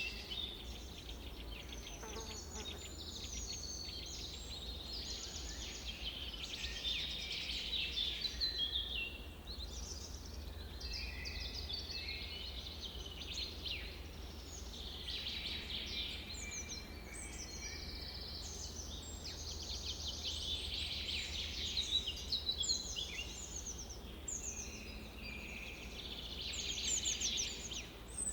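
Many birds chirping and singing at once, short overlapping calls and trills without a break, over a low steady rumble.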